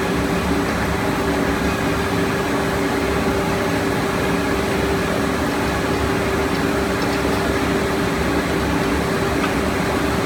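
HDPE raffia film extrusion line running: a steady mechanical hum with a constant tone over an even whirring noise.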